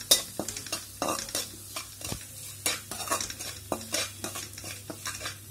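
Flat metal spatula scraping and tapping a metal pan in repeated irregular strokes while stirring dry spice masala into hot oil, with the oil sizzling underneath.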